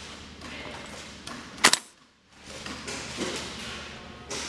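An airsoft gun fires one sharp, loud shot about one and a half seconds in, over soft shuffling footsteps and small knocks.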